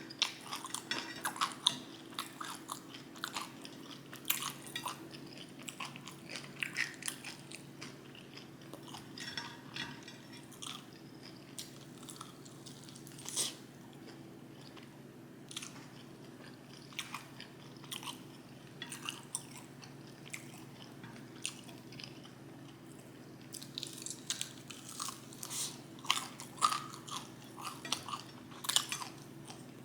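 Close-miked chewing and biting of pizza and chicken wings, a stream of sharp clicks and crackles, busiest in the first few seconds and again in the last several seconds. A faint steady hum runs underneath.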